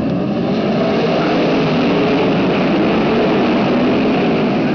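A full field of winged sprint cars' V8 engines running together as the pack circles the track, loud and dense, building slightly over the first second and then holding.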